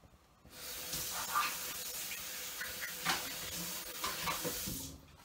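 Prawn omelette sizzling in a lidded frying pan, a steady hiss with small crackles. It starts suddenly about half a second in and cuts off just before the end.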